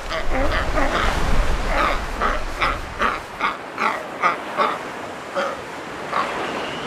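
Galápagos sea lions barking, short calls repeated about three times a second, pausing briefly and starting again near the end. Low wind or surf rumble underneath for the first few seconds.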